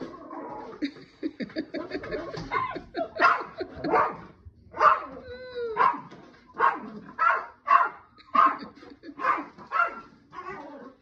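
Small Yorkshire terrier barking excitedly at a cat, in short high yaps that come faster toward the end, about two a second. There is a longer, wavering whine about five seconds in.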